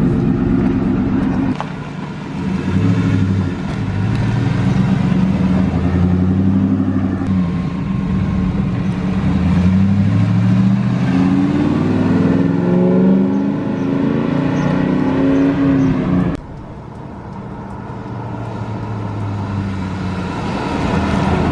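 A car engine running and revving, its pitch rising and falling, with abrupt changes in sound about a second and a half in and again near the end.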